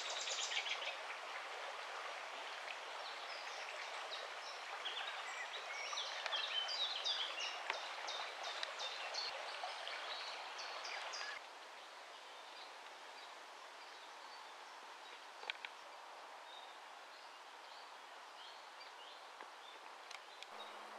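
Small birds singing in quick repeated chirps over a steady outdoor hiss. About eleven seconds in the sound drops suddenly to a quieter hiss with only faint, scattered birdsong and one brief sharp tick.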